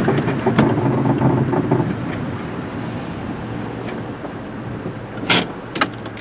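A 1995 Honda Civic's engine running, louder for the first two seconds and then settling to a steady level, with wind on the microphone. A couple of sharp clicks sound near the end.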